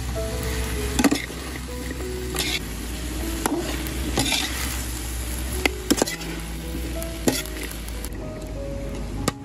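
Food sizzling in a hot pan while it is stir-fried, the spatula knocking and scraping against the pan several times.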